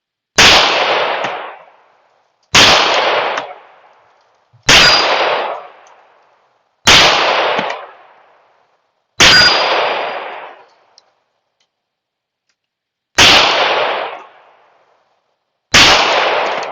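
Seven pistol shots from a Tisas 1911 in .45 ACP, fired one at a time about two seconds apart with a longer pause before the sixth, each shot's report echoing and dying away over a second or so. A brief high ring follows the third and fifth shots.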